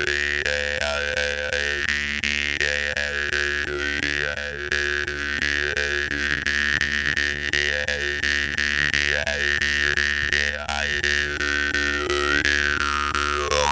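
Jaw harp (vargan) played as a steady twanging drone, plucked in a regular rhythm, with the overtones shifted up and down to sing a wavering melody over the fixed pitch.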